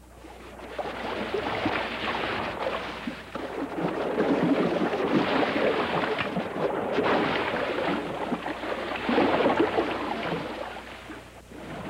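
Ocean surf breaking and washing against the shore: a steady rush that swells and eases, fading out near the end.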